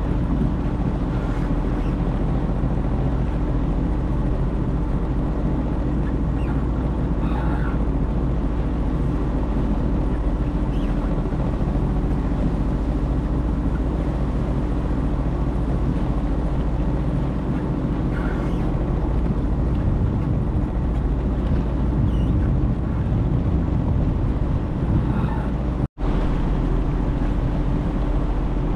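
Sea-Doo personal watercraft engine running at a steady speed, an even hum with water noise. The sound cuts out for an instant near the end.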